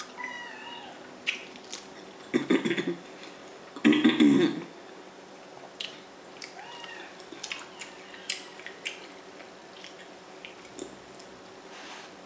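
Close-up eating sounds from a seafood boil: wet clicks and smacks from fingers picking at shell-on shrimp and from the mouth, with two louder muffled bursts a little over two and four seconds in. Short, wavering high-pitched cries come near the start and again about six and a half seconds in.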